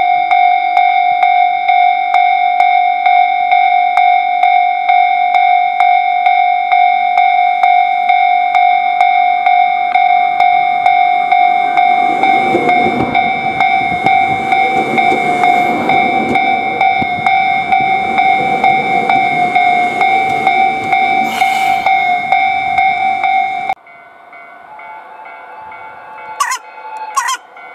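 Railway level-crossing alarm ringing steadily in a fast even rhythm, then cutting off suddenly near the end. Partway through, a JR 721 series electric train rumbles past close by on the rails. A few short sharp sounds follow just after the alarm stops.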